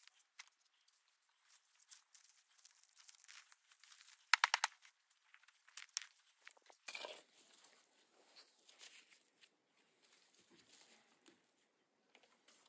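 Hand-weeding in garden soil: quiet crackling, tearing and scattered clicks of weeds and roots being pulled. A quick run of sharp clicks comes about four and a half seconds in, and a fuller rustle from about seven seconds on.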